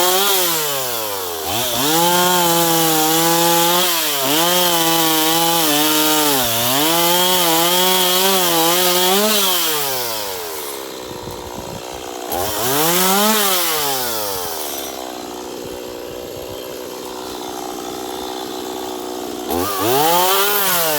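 Two-stroke chainsaw revving up and down. It is held at high speed for about seven seconds early on, drops to idle, then is blipped twice more.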